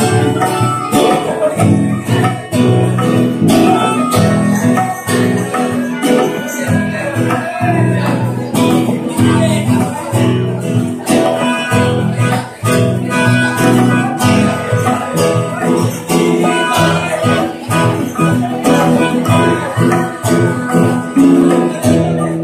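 Live band music: guitars strummed in a steady rhythm under a male voice singing into a microphone, closing on a held chord near the end.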